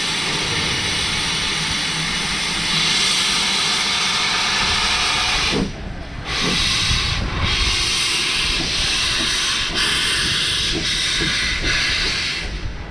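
LMS Ivatt Class 2 2-6-2 tank locomotive venting steam through open cylinder drain cocks: a loud, steady hiss that grows louder a few seconds in. About six seconds in, as the engine pulls away, the hiss breaks into uneven bursts about a second apart.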